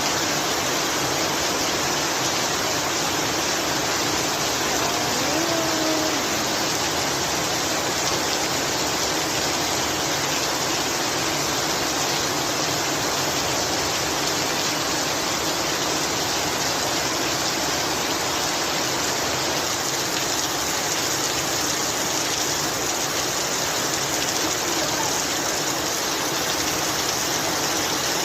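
Rain falling steadily, a dense even hiss that holds at one level throughout.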